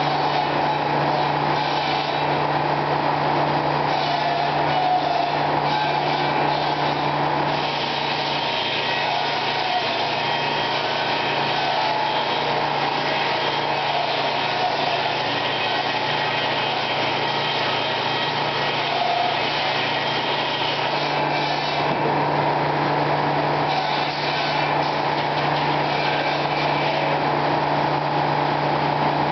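Circular sawmill running: steady machinery noise from the big circular head saw and its drive. From about eight to about twenty-one seconds in the low hum drops back while a log passes through the saw on the carriage.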